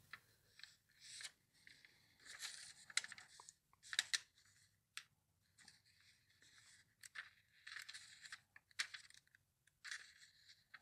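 Glossy catalog pages turned and handled by fingers: faint papery swishes and rustles about once a second, with a few small crisp ticks as the pages flip.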